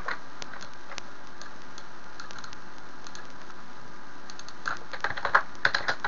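Computer keyboard typing: a quick run of key presses over the last second and a half, after a few scattered single clicks, over a steady hiss.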